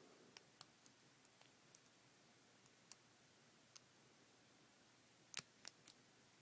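Faint, scattered clicks of a lock pick and tension wrench working the pins of a brass Brinks padlock, with a short cluster of louder clicks near the end.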